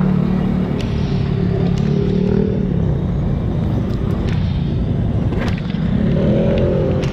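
Motor vehicle engine running steadily while driving along a city street, its pitch rising about six seconds in as it speeds up.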